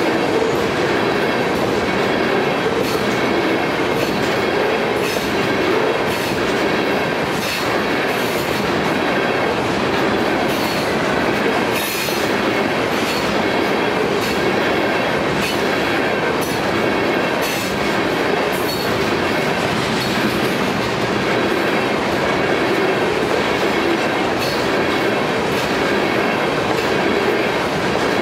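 Tank cars of a unit oil train rolling past close by: a steady rumble of steel wheels on rail, with repeated clicks as the wheels cross rail joints and a faint high wheel squeal running underneath.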